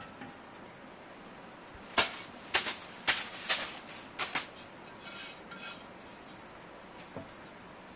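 Fired clay plates knocking and clinking against each other and the wood as they are handled: a quick run of sharp knocks starting about two seconds in, then two fainter clinks with a short ceramic ring.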